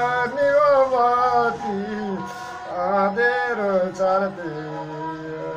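Man singing a long, wavering melodic phrase in Nepali folk style, accompanied by a bowed Nepali sarangi; near the end the pitch settles into a steadier held note.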